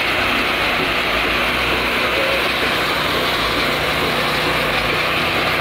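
Portable band sawmill's engine running at a steady, even pitch.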